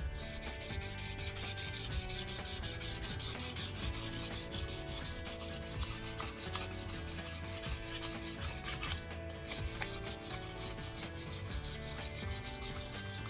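Fine-grit sandpaper rubbed by hand in quick, repeated strokes over the curb-rashed edge of an alloy wheel, smoothing the coarse-sanded area as prep for paint. There is a brief pause about nine seconds in.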